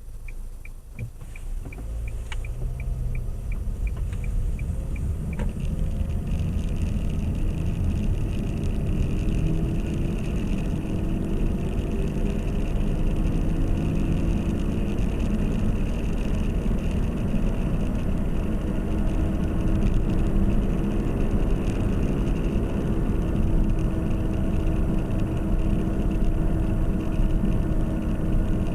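2010 Nissan Qashqai picking up speed, with the right front wheel hub droning; the drone climbs slowly in pitch as the car goes faster. The droning hub is the fault being shown. A quick run of regular ticks is heard over the first few seconds.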